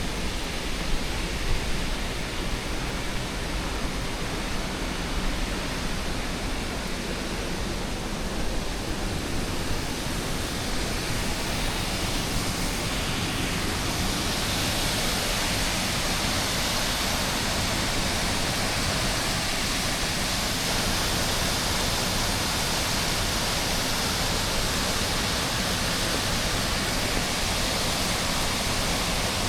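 Steady rushing of falling water from a waterfall, a continuous even hiss that grows louder and brighter about halfway through.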